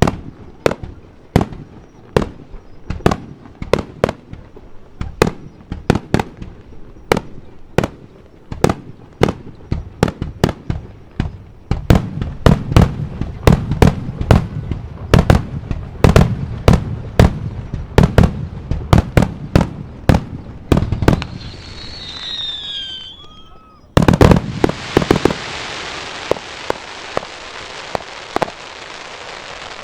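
Aerial fireworks display: shells bursting in a quick run of sharp bangs, about two a second, growing denser with deep booms midway. A few falling whistles come a little over two-thirds through, then a loud burst gives way to a dense, steady crackling hiss.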